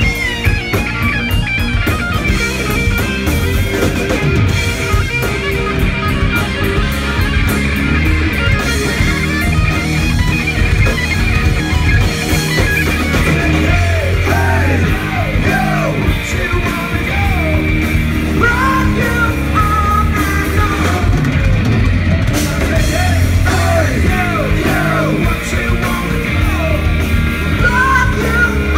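Live rock band playing loud: electric guitars over bass and drums, with bending, gliding guitar or vocal lines in the second half.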